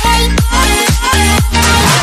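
Background electronic dance music with a steady kick drum about twice a second over a deep bass line and a bright melody.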